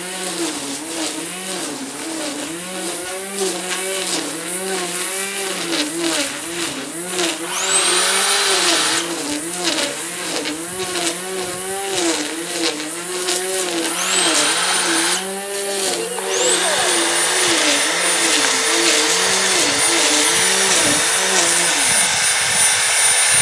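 Corded electric grass trimmer running as it cuts long grass. Its motor pitch rises and falls over and over as the load changes, and a high whine climbs and holds each time it runs freer. The motor stops suddenly at the end.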